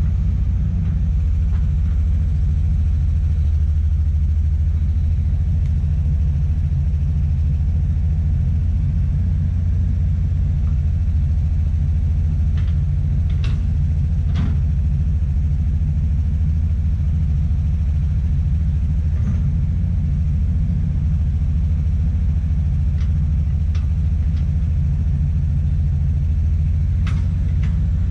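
Komatsu PC200 excavator's diesel engine running steadily with a low rumble, with a few faint clicks.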